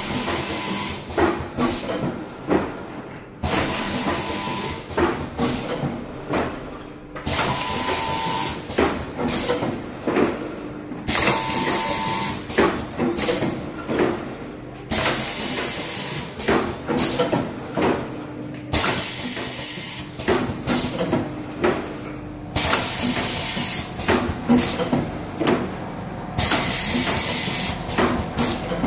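Four-lane Nespresso capsule filling and sealing machine running: pneumatic cylinders hissing and metal tooling clacking, the cycle repeating about every four seconds.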